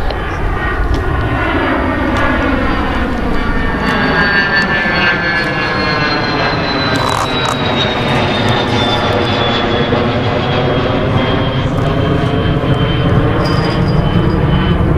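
Dassault Falcon 2000DX business jet climbing out overhead after takeoff, its twin turbofan engines making a steady loud rumble. A high whine slowly falls in pitch as it passes, with a sweeping, phasing quality in the jet noise.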